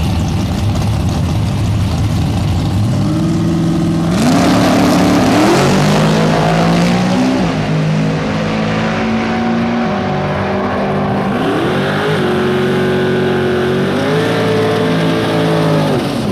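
Supercharged Mustang drag car engine held at high revs on the line, then launching hard about four seconds in and accelerating down the strip. Its pitch climbs and drops back at each gear change, and near the end the revs fall away as it lifts off.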